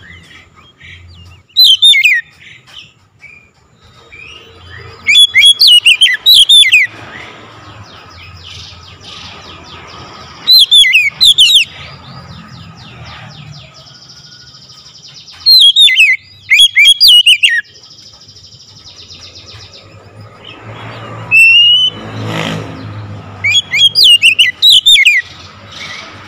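Oriental magpie-robin calling loudly: six bursts of rapid, sharp whistled notes, each about a second long and spaced roughly five seconds apart.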